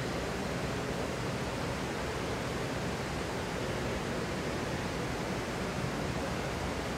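Steady, even rushing ambience of a large hotel atrium, with water running over the rocks of its indoor water feature.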